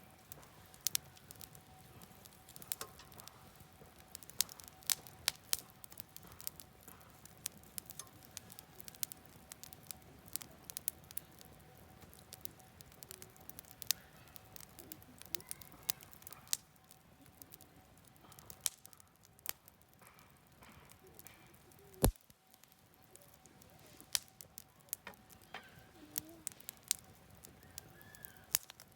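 Wood campfire crackling, with irregular sharp pops and snaps and one loud snap about three quarters of the way through, over the faint steady rush of a stream.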